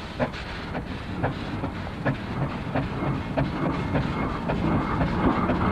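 Steam roller and traction engine under way, towing their vans. Their exhaust beats chuff about twice a second over a steady low rumble, getting louder toward the end.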